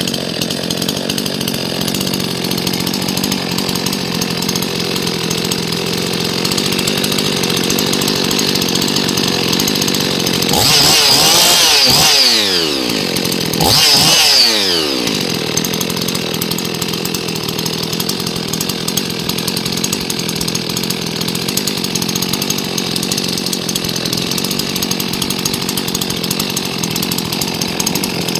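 Husqvarna 55 chainsaw's two-stroke engine, on an aftermarket cylinder with a modified impulse hole, idling steadily. It is revved twice about halfway through, the second rev shorter, and each time falls back to idle.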